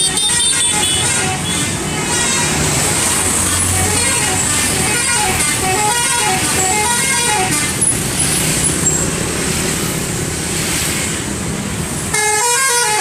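Bus telolet horns, multi-tone musical air horns, playing a short rising-and-falling tune over and over above a steady low rumble of bus engines. The sound changes abruptly about twelve seconds in.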